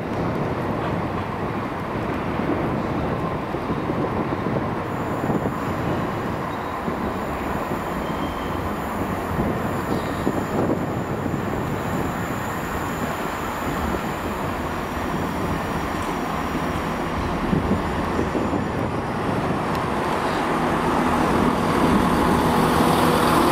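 Diesel multiple unit train approaching and running into the platform, its engine and wheels on the rails growing louder over the last few seconds as it draws alongside.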